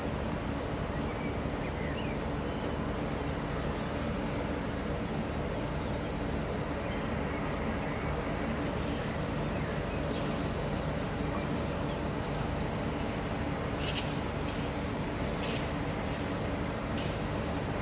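Steady low drone of heavy construction machinery running, with small birds chirping over it throughout.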